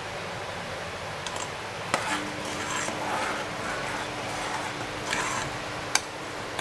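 Metal spoon scraping and rubbing around the inside of a pot of simmering molokhia as white foam is skimmed off the top, with a knock about two seconds in and a sharp clink near the end, over a steady hiss.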